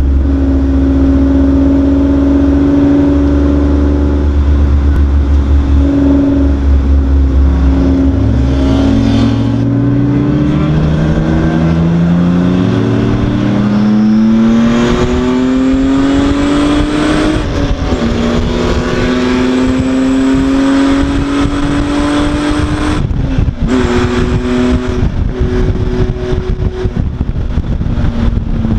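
Race car engine heard from inside the cockpit. It runs steady at first, then climbs in pitch under acceleration from about eight seconds in, with a drop in revs at a gear change a little past halfway. It holds high revs, then drops suddenly about twenty-three seconds in and runs steady again.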